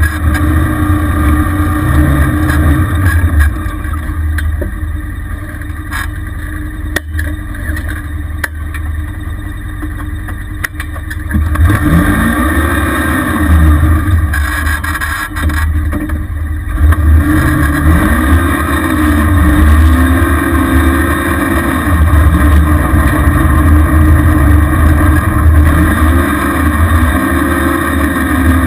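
A red ATV's dual-overhead-cam engine running as it is ridden through deep snow. It runs lower for a stretch early on, then revs up and eases off several times.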